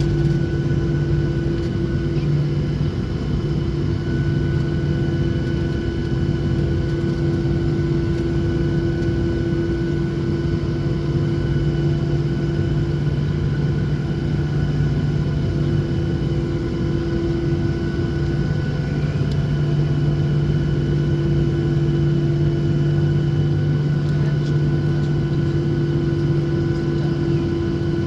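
Boeing 737-800's CFM56-7B turbofan engines at takeoff thrust, heard from inside the passenger cabin as a steady drone with a few held tones over it.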